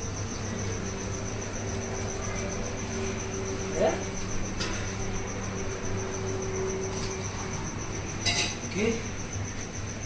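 A steady, high-pitched pulsing trill like a cricket's over a steady low hum, with a sharp clink about eight seconds in.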